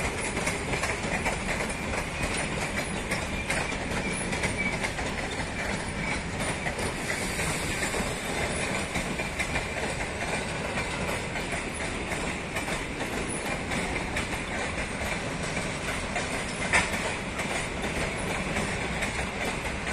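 Passenger coaches rolling past, their wheels clicking over the rail joints, with a steady high squeal as the train slows to arrive. One sharp clack stands out about seventeen seconds in.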